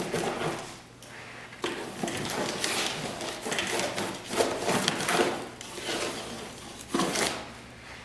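Irregular handling noises: rustling, scraping and a few knocks of objects being moved about.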